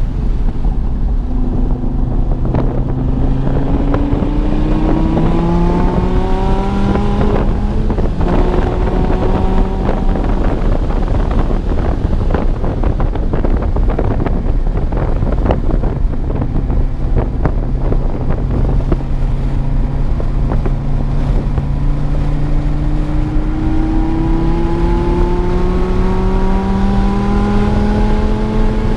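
2016 Dodge Viper TA 2.0's 8.4-litre V10, running with a tune and headers, pulling hard on track: the engine note climbs from about a second in, drops at a gearchange near eight seconds and climbs again. A rougher, unsteady stretch at lower revs with crackles follows in the middle, then a long pull up through the revs toward the end.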